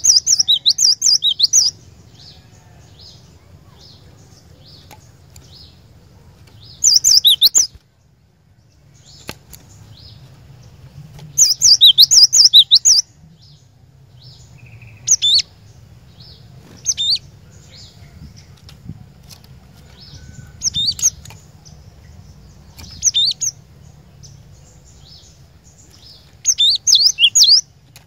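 Cinereous tit (glatik batu) singing: short bursts of rapid, high, sharp chirping notes, about eight phrases separated by pauses of a second or more, over a faint steady low hum.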